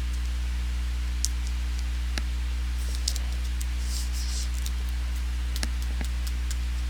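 Light clicks and a brief papery rustle of trading cards and pack wrappers being handled and sorted, over a steady low electrical hum.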